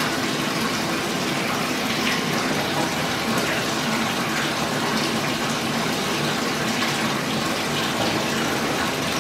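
Water running steadily from the tap into a bathtub, filling it.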